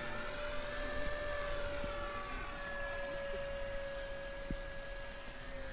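50 mm electric ducted fan of an RC model Avro Vulcan whining steadily in flight, its pitch sinking slightly as the plane passes.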